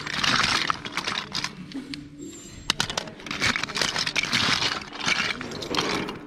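Small hard-plastic action figures and accessories clattering and rattling against each other as hands rummage through a bin of loose toys, in bursts, with one sharper clack near the middle.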